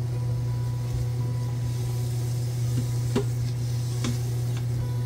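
Diced onions sizzling in olive oil in an Instant Pot's stainless steel inner pot on sauté, stirred with a silicone spatula that knocks lightly against the pot a few times, about three and four seconds in. A steady low hum runs underneath.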